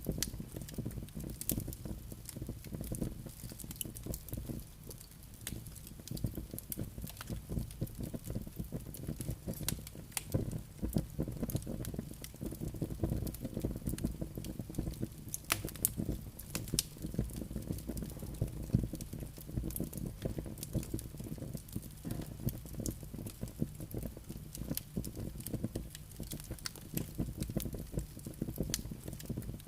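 Wood logs burning in a fireplace: a steady low rumble of flames with many small pops and snaps scattered irregularly throughout.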